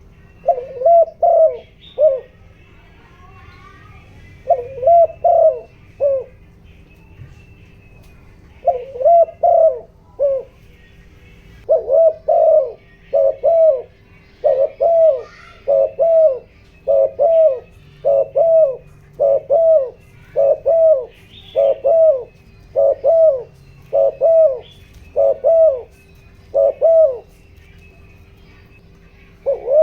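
Spotted dove cooing: a few short phrases of three or four coos, then a fast run of paired coos about once a second. This is the urgent 'thúc gù' cooing used as a decoy call to stir up wild doves. Small birds chirp faintly behind it.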